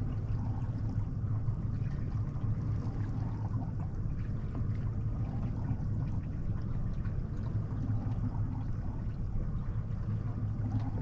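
Boat's motor idling with a steady low hum, with water lapping against the hull.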